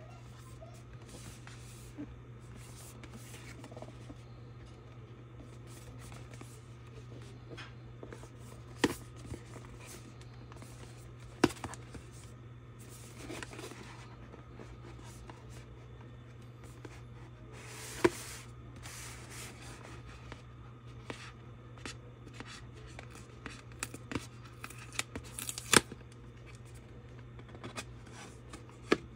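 Hands handling a cardboard drone box: fingers rubbing and scraping on the cardboard, with a few sharp taps. Near the end comes a run of small clicks and rustles as the box's top flap is lifted open. A steady low hum sits underneath.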